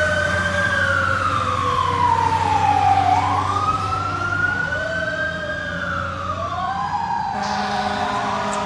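Fire truck siren on a wail, its pitch rising and falling in long slow sweeps as the ladder truck pulls away.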